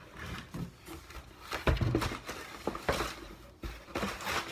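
Sneakers and a cardboard shoe box being handled: light rustling broken by several knocks and thumps, the loudest a little under two seconds in.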